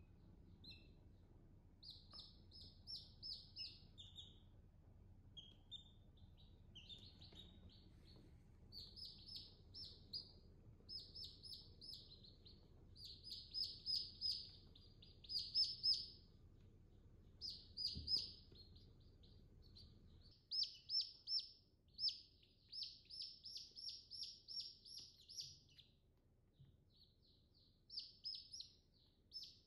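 Chicken chicks peeping: runs of short, high, rapid peeps that come in bursts with brief pauses between them.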